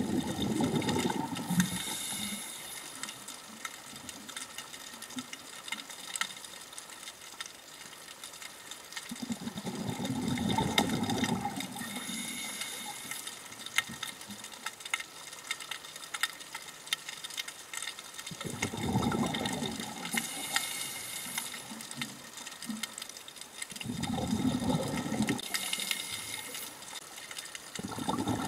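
A scuba diver breathing underwater through a regulator: four rumbling bursts of exhaled bubbles several seconds apart, each ending with a short high hiss, over a steady underwater hiss.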